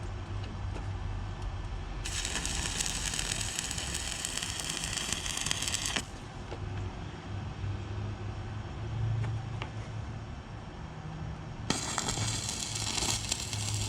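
Stick (arc) welder crackling in two runs of a few seconds each, about two seconds in and again near the end, as small holes in an exhaust pipe are filled with weld; a low hum lies between the runs.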